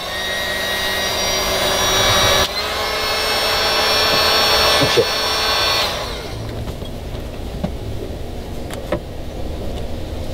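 Corded electric drill running steadily while drilling at the bow light's mounting base. It changes slightly about two and a half seconds in and stops about six seconds in, followed by a few faint clicks.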